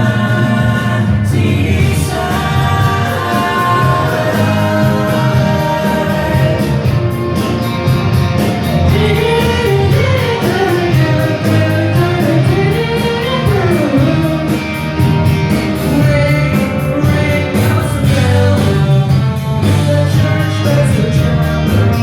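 Live rock band playing a song, with layered harmony vocals over sustained chords and a deep bass. A wavering melody line rises and falls through the middle.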